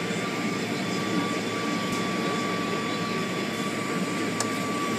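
Automatic car wash machinery running: a steady, even roar with a faint steady whine, and a single click about four and a half seconds in.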